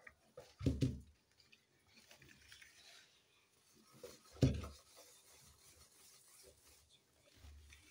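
A wire whisk stirring sifted flour into a thick batter in a bowl: a soft scraping rub, with two dull knocks, one about a second in and one about halfway through.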